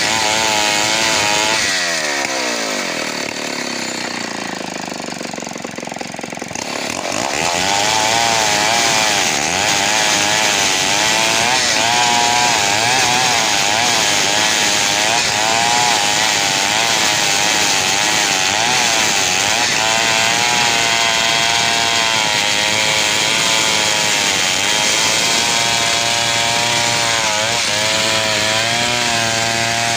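A large chainsaw running at high revs, dropping back toward idle about two seconds in, then revving up again about seven seconds in and running at full throttle with a wavering pitch as it saws through wood.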